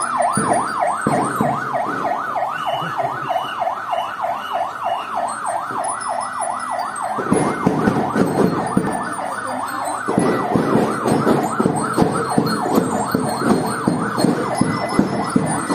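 Police vehicle siren on a fast yelp, its pitch sweeping up and down about four times a second. About seven seconds in, rapid parade drumming joins beneath it.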